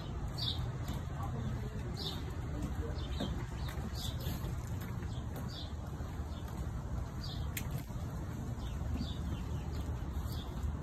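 Steady low outdoor rumble, with short high chirps of a small bird repeating irregularly about once a second. A single sharp click comes about seven and a half seconds in.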